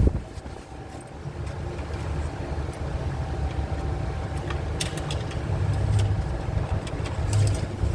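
A vehicle engine idling with a steady low rumble, with a sharp click at the start and a few light clicks later on.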